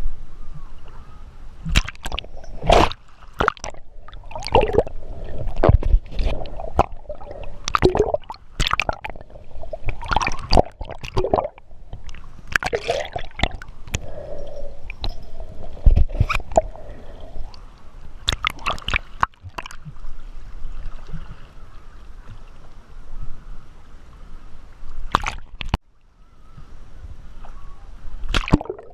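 Water sloshing and gurgling close against the camera, with many irregular splashes and knocks.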